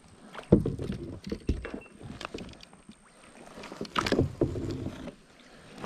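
Kayak being paddled: the paddle splashes in the water and knocks against the kayak's hull, with the loudest knocks about half a second in and again about four seconds in.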